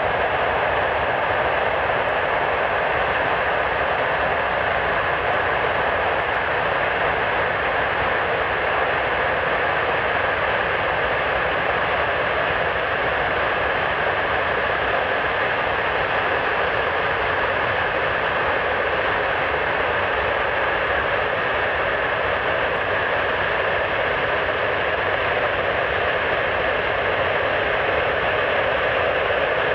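Avro Vulcan bomber's Rolls-Royce Olympus turbojets running steadily during a ground engine test, an even jet roar that holds at one power setting throughout.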